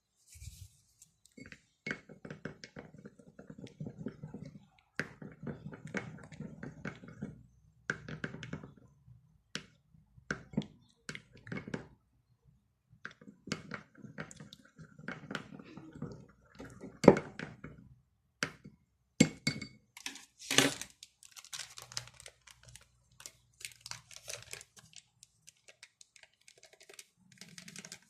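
Slime being squished and worked: irregular wet clicks, pops and crackles with short pauses, the sharpest pop about seventeen seconds in.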